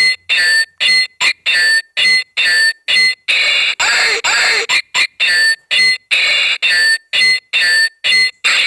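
Pixel sword toy's electronic sound effects from its small built-in speaker, set off again and again: short bright clips that cut off abruptly, about two or three a second.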